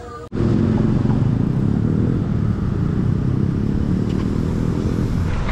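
Loud road traffic with motorcycle engines running, starting suddenly less than a second in and continuing steadily.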